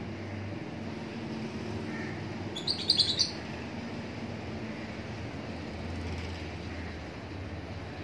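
Peach-faced lovebird giving a quick run of about four sharp, high chirps about three seconds in, over a steady low hum.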